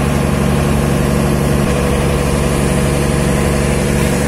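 River ferry's diesel engine running steadily under way, heard on board as a loud, even drone.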